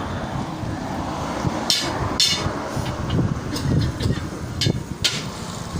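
Hand tools knocking and clinking irregularly during work on a punctured tyre, about eight sharp strikes, over a steady low rumble.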